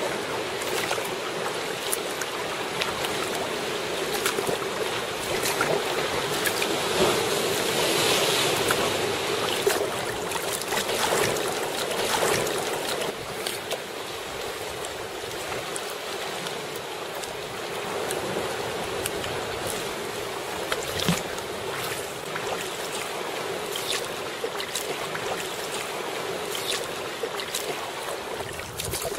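Sea water splashing and lapping around a sea kayak as it is paddled, with the paddle blades dipping into the water and swell washing against the rocks; a steady wash of water with many small, sharp splashes and drips.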